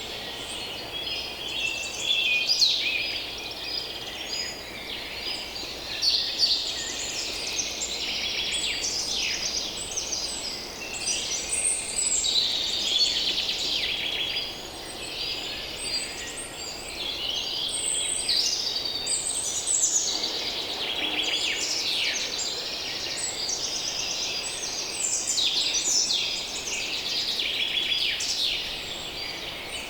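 A dense chorus of many songbirds singing and calling at once, with overlapping high trills and chirps throughout, over a faint low background hum.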